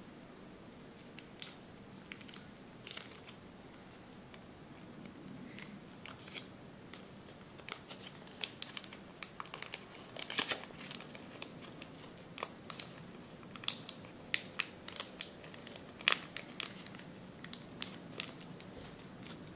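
Origami paper crinkling and crackling as it is folded and pinched by hand. The crackles are sparse at first, then come as a quick run of crisp crackles and taps from about six seconds in.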